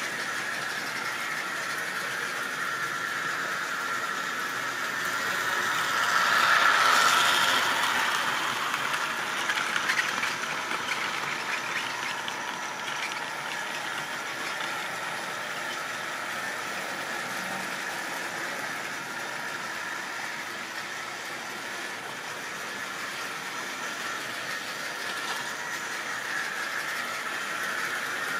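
Model railway trains running on the layout track: a steady whir of small electric motors with the wheels rattling over the track, swelling louder about seven seconds in, with a few sharp clicks about ten seconds in.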